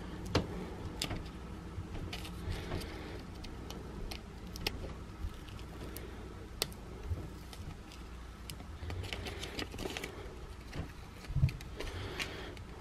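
Adhesive vinyl decal and its paper backing being handled and peeled apart: scattered crackles and sharp ticks of the film and paper, with a soft thump about eleven seconds in.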